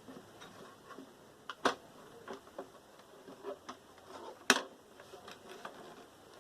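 Scattered sharp clicks and knocks of hard computer-case parts being handled during disassembly, with a louder knock a little under two seconds in and the loudest about four and a half seconds in.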